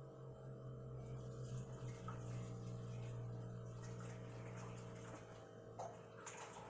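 Water running steadily into a container as it is filled for a coffee maker, easing off a little before the end, with a small click near the end.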